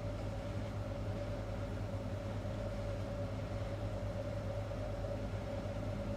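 Steady low background hum with a faint, steady higher tone running through it and an even hiss, like a running machine or appliance.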